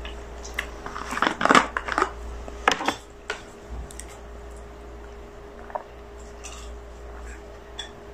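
A plastic water bottle being handled and its cap opened: a cluster of sharp plastic clicks and knocks in the first three seconds, then a few faint ticks as it is lifted to drink.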